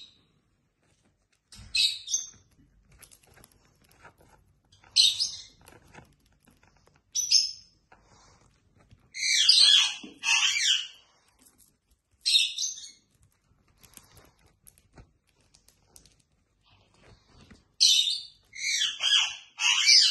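Peach-faced lovebird giving short bursts of high, sharp chirps every few seconds, with a longer run of chirping about halfway through and a dense run near the end.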